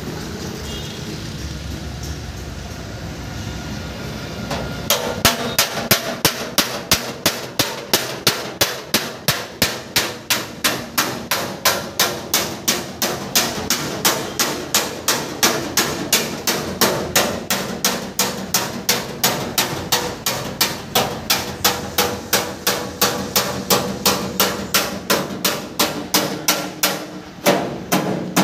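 Steady hammering, sharp evenly spaced blows at about two and a half a second, starting about five seconds in after a few seconds of steady background noise and stopping shortly before the end.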